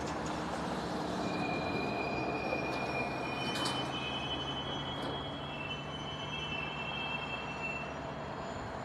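Rail cars rolling slowly along the track with a steady rumble and intermittent high-pitched steel wheel squeal, several squealing tones overlapping through the middle.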